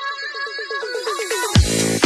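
Electronic dance music. The kick drum and bass drop out for a run of quick repeated synth notes under a rising hiss, then the heavy beat comes back in about one and a half seconds in.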